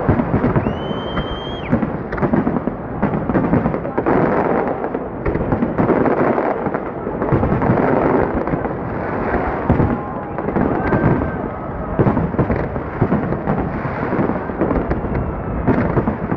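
Aerial fireworks bursting in a dense, continuous barrage, booms overlapping one another with crackling in between. A brief high whistle sounds about a second in.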